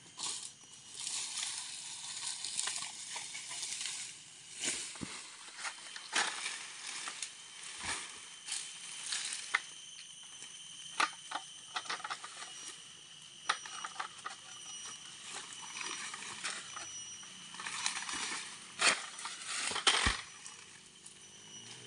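Rustling and cracking of oil palm fronds as a long-pole harvesting sickle hacks and pulls at the crown of a tall palm, with many sharp knocks and a few heavier thuds, about three, of cut material hitting the ground. A steady high drone runs underneath.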